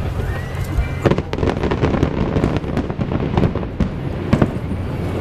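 Aerial fireworks going off in a rapid string of sharp bangs and crackles, starting about a second in and thinning out near the end.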